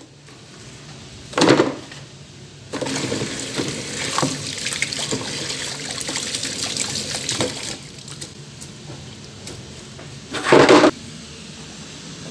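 Kitchen tap water pouring over tomatoes, potatoes and herbs being rinsed in a plastic tub. The flow starts about three seconds in and eases off about five seconds later. A knock comes near the start and a brief loud clatter near the end.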